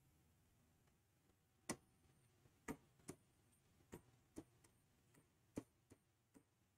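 Pen tapping on a writing surface as arrows and underlines are drawn: about eight short, sharp clicks at irregular intervals, with near silence between them.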